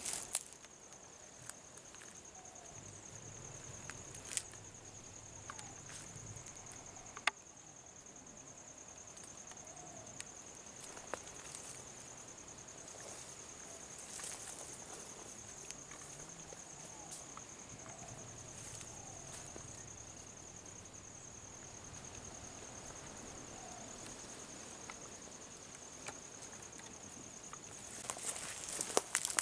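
Steady high-pitched insect trill, with scattered sharp clicks and a burst of rustling and snapping near the end.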